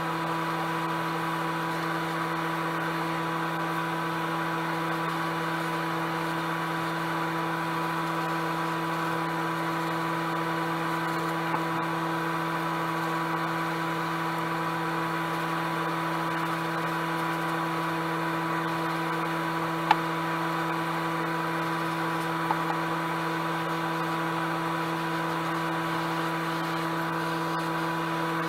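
A small electric motor in the airbrush painting setup running with a steady hum and a constant whine, with one sharp click about two-thirds of the way through.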